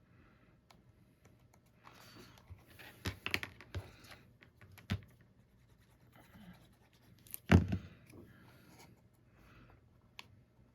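Paper and cardstock being handled and pressed into place on a small box: soft rustling with a few sharp clicks and taps, and one heavier thump about seven and a half seconds in.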